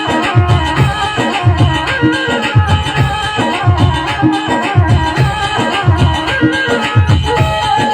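Instrumental interlude of a Rajasthani folk bhajan: a melody line over a steady, rhythmic drum beat.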